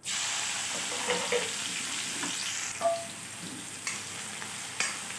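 Chopped onions hit hot oil in a kadhai and start sizzling all at once, then keep frying steadily. A steel ladle stirring scrapes and clicks against the pan a few times.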